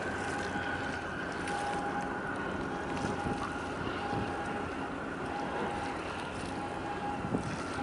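Harbour ambience: wind on the microphone over choppy water, with a steady distant engine drone from ships in the harbour. A faint short high tone comes and goes about once a second.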